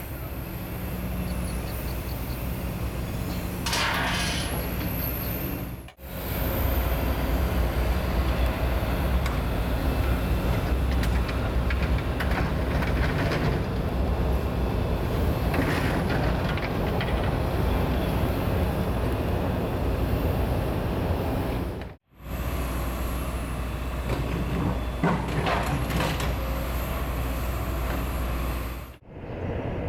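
Diesel engine of a hydraulic demolition excavator running steadily, with a few brief hisses over it. The sound breaks off sharply twice and changes each time.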